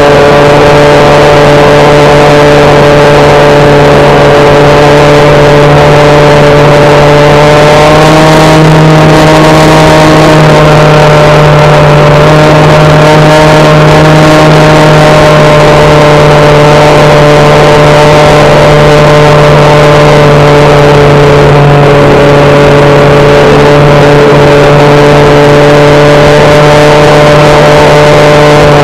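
Electric motor and propeller of a HobbyKing SkyEye FPV plane, picked up by the onboard camera's microphone: a loud, steady drone that holds at cruise throttle, its pitch shifting slightly about a third of the way in.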